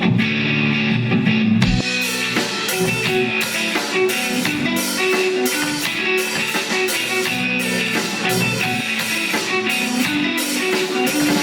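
Live rock band playing a song's instrumental intro: guitars with drum kit, cymbals and hi-hat joining about two seconds in.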